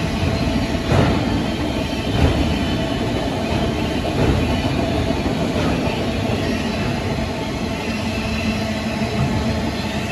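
Canadian National train rolling past, a steady rumble of wheels on rail with a few louder clunks about one, two and four seconds in.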